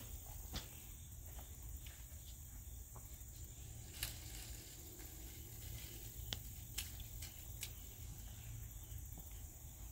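Faint rustling of garden plants with a few sharp clicks, from someone working among squash vines with pruning shears, over a steady low rumble and a faint high hiss.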